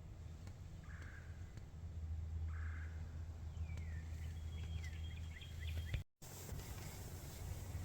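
Faint distant bird calls: three short calls about a second and a half apart, then a falling chirp and a quick run of high songbird chirps, over a steady low rumble. The sound cuts out abruptly for a moment about six seconds in.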